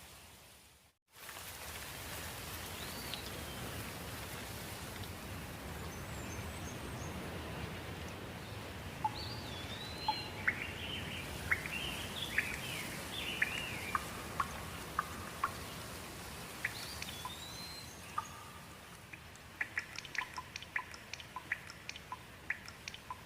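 Steady rain with birds chirping over it, the calls thickest in the middle. The sound cuts out for about a second near the start, and a run of quick sharp ticks comes near the end.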